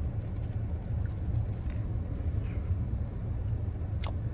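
Steady low rumble inside a car's cabin, with faint mouth sounds of eating noodles and a sharp click about four seconds in.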